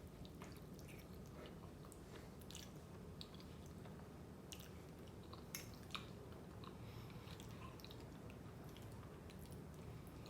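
Faint chewing of soft fettuccine noodles in alfredo sauce, with scattered small wet mouth clicks.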